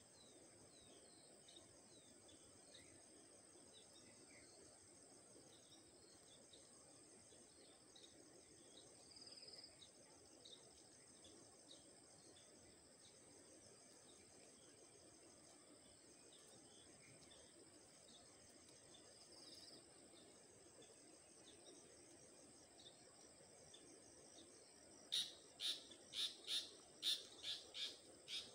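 Steady high-pitched drone of insects in the grass, with faint scattered chirps. Near the end a bird gives a rapid run of about nine sharp, high chirps, roughly three a second, the loudest sound here.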